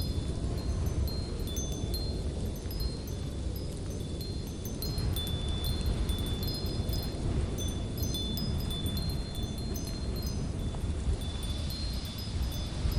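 Wind chimes ringing, scattered high notes at several pitches overlapping one another, over a steady low rumble of wind.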